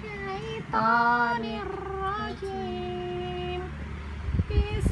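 A young girl's voice chanting in a sing-song melody, holding long steady notes with slides between them, in the style of children's Quran recitation. A few low bumps come near the end, like the microphone being knocked.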